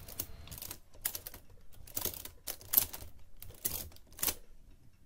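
Olivetti Multisumma 20 electro-mechanical adding machine's mechanism worked by hand crank during a multiplication: a dozen or so irregular, light metallic clicks as its racks are stepped back one notch at a time.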